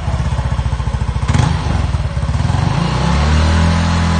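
Yamaha NMAX V1 scooter's single-cylinder engine idling through a JVT v2.1 'silent killer' aftermarket exhaust, with a quick pulsing beat and a brief blip about a second in. About three seconds in, the engine is revved and held at a higher, steadier and louder note.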